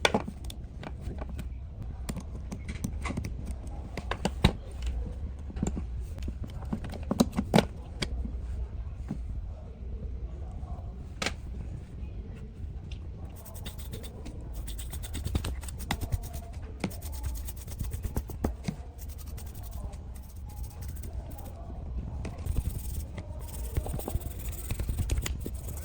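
Scattered clicks, taps and light scraping of hand work on small parts, over a low steady rumble.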